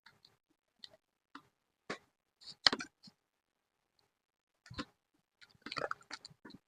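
Scattered short clicks and rustles of paper and craft materials being handled. The loudest comes about two and a half seconds in, and a quick cluster follows near the end.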